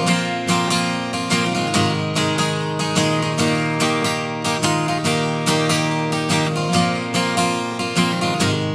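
Acoustic guitar strummed in a steady rhythm, an instrumental break between sung verses.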